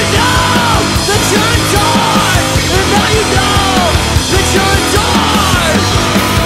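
Punk rock band playing live at full volume: distorted electric guitars, bass and drums in a dense, steady wall of sound.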